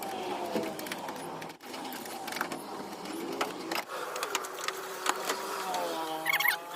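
A small electric power tool motor running in spurts, its pitch dropping and rising as it loads up, with sharp clicks between, while a mud flap is fastened to the wheel well.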